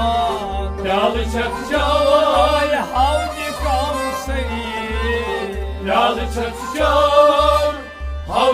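Kashmiri folk song: a man singing in long, wavering phrases over a harmonium, with a drum beating steadily about twice a second.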